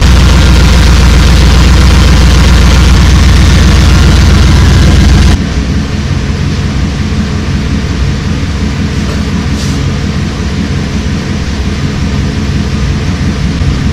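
Pontiac Firebird's LT1 V8 running at a steady idle. Loud and close for the first five seconds or so, then suddenly quieter and more distant for the rest.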